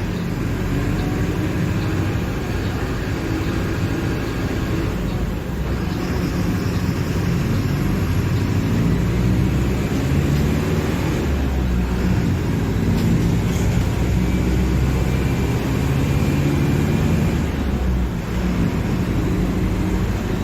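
Diesel engine of a Mercedes-Benz OF-1721 Bluetec 5 bus running under way, its note shifting up and down and getting louder in the middle stretch.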